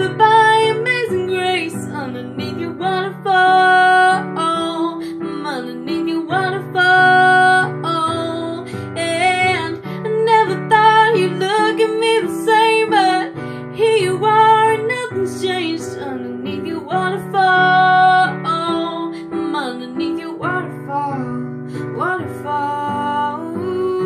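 A teenage girl singing a slow ballad melody over her own piano accompaniment of sustained chords that change every second or two.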